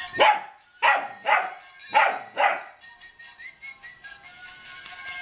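German shepherd puppy barking five times in quick succession, then a musical Santa Claus toy's electronic tune plays on.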